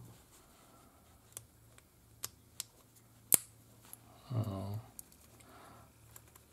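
Small sharp clicks and taps of plastic model-locomotive parts being pressed and fitted together by hand, the loudest a little past three seconds in, with a brief vocal murmur about four and a half seconds in.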